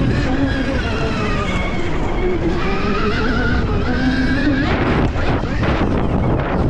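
Electric motocross bikes' motors whining, the pitch wavering up and down with the throttle, over steady wind and tyre noise. About five seconds in the whine gives way to a rougher, noisier rush.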